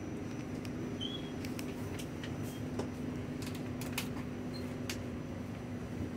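Steady hum inside an R46 subway car standing in a station, with no rail noise, and a faint high whine that stops about midway. Scattered light clicks and knocks come from about a second in until near five seconds.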